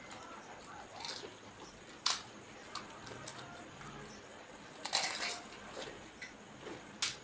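Pani puri (fuchka) being eaten: a few short crunches and squishes as the crisp fried shells, filled with spiced water, are cracked and bitten, the longest crunch about five seconds in.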